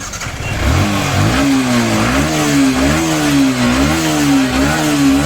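Yamaha R15's 155 cc single-cylinder engine comes up about a second in and is then blipped over and over, its pitch rising and falling about once a second. The bike has a mechanical engine noise that was traced to a worn timing chain, chain tensioner, camshaft bearing and rocker.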